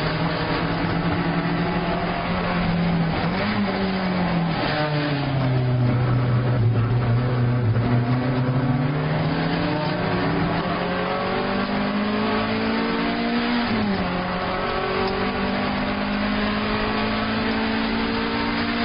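Alfa Romeo 1750 GTV's twin-cam four-cylinder engine racing, heard from inside the cabin. The revs fall about four seconds in as it slows and downshifts, then climb steadily under hard acceleration, with a quick drop for an upshift about fourteen seconds in before climbing again.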